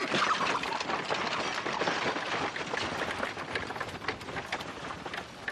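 Horse-drawn wooden farm wagon pulling away: its spoked wheels crunch and rattle over gravelly ground, with the horse's hooves clopping among many small irregular clicks. The noise slowly fades as the wagon moves off.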